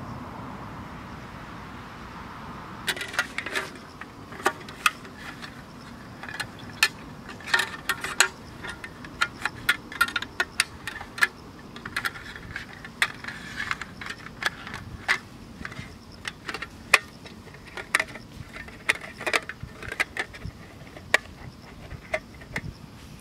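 Captain Stag aluminium roll table being set up by hand: its metal frame and slats clink and clatter in many sharp, irregular clicks, starting about three seconds in.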